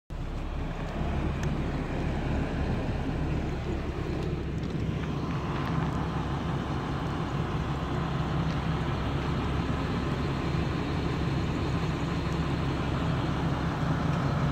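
An engine running steadily with an even low rumble and hum, and a faint higher drone that joins about a third of the way in.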